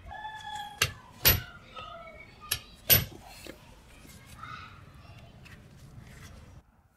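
Steel chisel and hammer knocking on a granite block, splitting and chipping the stone: four sharp knocks within about three seconds, the last the loudest, then only light handling.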